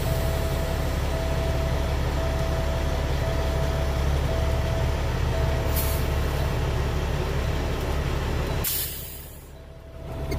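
Semi-truck's diesel engine running in the cab as the tractor backs slowly under a trailer: a steady low rumble with a faint beep repeating about once a second. Near the end there is a short burst of noise and the rumble falls away sharply.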